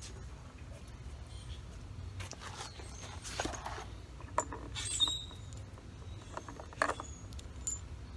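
Small metal fender-mounting hardware being handled: scattered clicks, rustles and light metallic clinks, thickest from about three seconds in with the sharpest near five and seven seconds, over a low steady hum.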